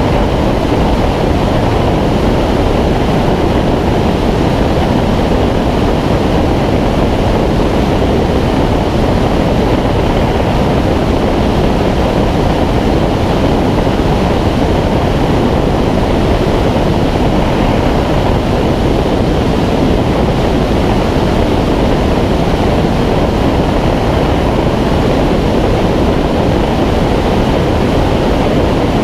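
Steady, loud rush of wind buffeting a camera microphone mounted on the wing of a Schweizer 2-33 glider in flight.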